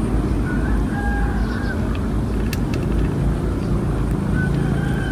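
Steady low rumbling outdoor background noise, with a few faint short high chirps over it.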